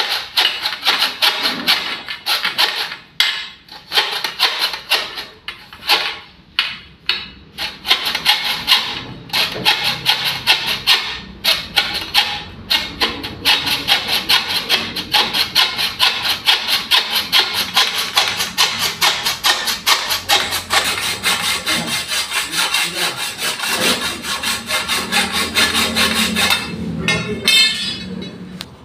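Hacksaw cutting through EMT steel conduit in back-and-forth strokes. The strokes are broken by short pauses at first, then run steady and fast, and stop shortly before the end as the cut goes through.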